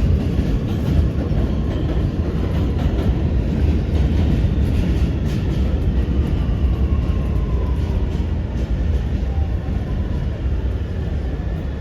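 Inside a Kawasaki R211A subway car in motion: a steady low rumble of the wheels on the rails with scattered clicks, and an electric motor whine falling in pitch in the middle as the train slows into a station.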